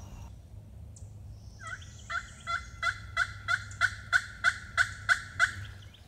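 A turkey call run by a hunter, yelping: a series of about a dozen short, sharp, evenly spaced yelps, roughly three a second, getting louder as it goes. It is a strike call meant to get a gobbler to answer.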